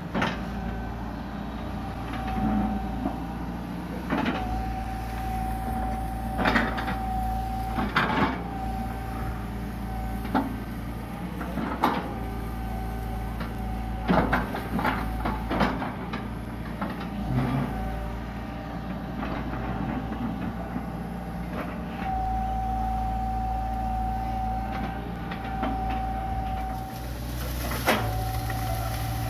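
Hitachi EX120 long-arm excavator running steadily, its diesel engine humming under a steady whining tone that comes and goes as the hydraulics work. Repeated sharp knocks and clanks sound from the bucket as it digs and tears through banana plants.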